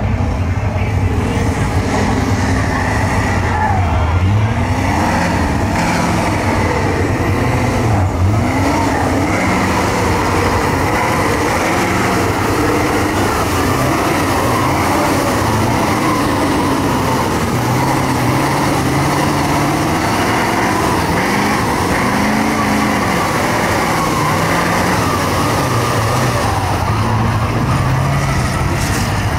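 Diesel engine of a lifted mega mud truck on tall tractor-style tires, revving hard as it pushes through deep mud, its pitch rising and falling again and again.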